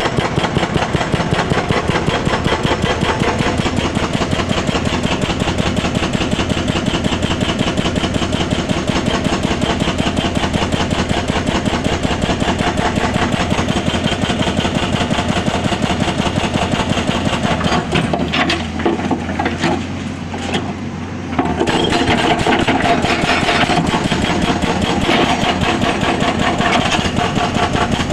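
Excavator-mounted hydraulic breaker hammering in a fast, even rhythm over the excavator's diesel engine running. About two-thirds of the way through the hammering stops for roughly three seconds, then starts again.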